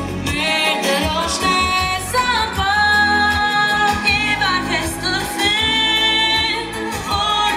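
Young singers, mostly female voices, singing a pop song live over amplified instrumental accompaniment with a steady bass line, the sung notes held and wavering with vibrato.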